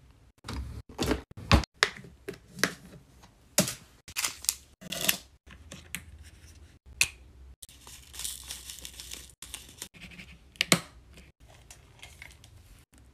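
Small clear plastic bead-storage boxes being handled: a quick run of sharp plastic clicks and taps. Then a zip-lock bag rustles as diamond-painting drills are poured into a box, and one loud click comes near the end.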